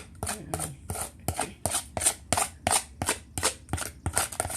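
Repeated scraping strokes, about three a second: pie filling being scraped out of its container.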